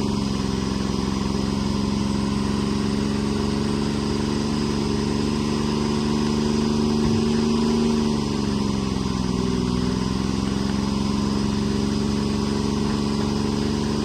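Treefarmer C5 forwarder's engine running steadily, its pitch sagging briefly around the middle and then recovering, as it works under changing load.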